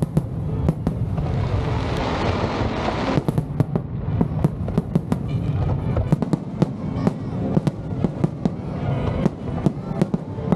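Aerial fireworks display with many sharp bangs going off in rapid succession, thickest in the second half. About a second and a half in, a dense hissing crackle swells for about two seconds.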